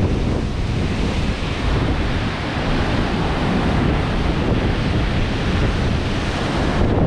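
Wind noise on the microphone over the steady wash of rough ocean surf breaking and churning into whitewater.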